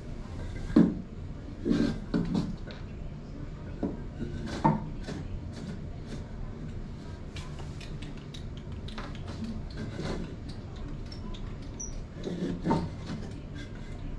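Plywood platform pieces being handled and set in place: scattered wooden knocks and scrapes, the loudest about a second in and again near the end.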